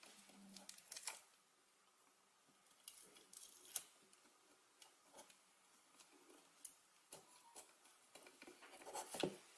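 Near silence with a few faint, short clicks and taps from hands handling the foam-board and plastic parts of a model, the clearest near the end.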